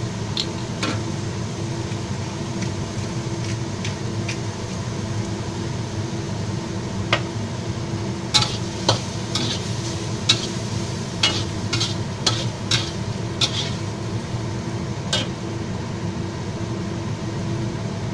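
Pork, celery and onions sizzling in a hot wok with a steady hiss. From about seven seconds in, a metal spatula clanks and scrapes against the wok about ten times as the food is tossed.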